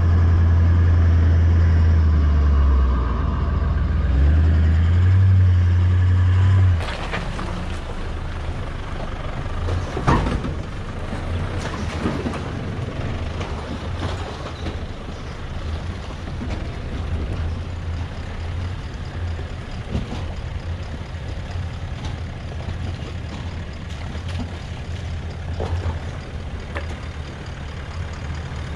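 Loud, steady low drone of a four-wheel drive's engine heard from inside the moving vehicle for about seven seconds. Then the level drops and a Nissan Navara NP300 ute's engine runs steadily as it crawls through a shallow, rocky creek crossing, with a hiss of water and a few sharp knocks, the loudest about ten seconds in.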